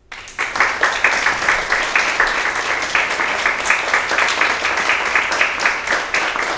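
Audience applauding: many hands clapping together in a dense, steady patter that cuts in abruptly.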